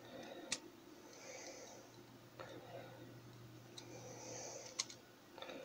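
Faint scraping and two small sharp clicks of a hand tool picking dirt off the wheels of an HO-scale Piko BR 80 steam locomotive chassis.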